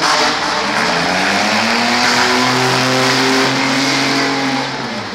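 A mid-size demolition derby car's engine revving up over a couple of seconds, held high, then dropping back near the end. The car stays put, its transmission called finished.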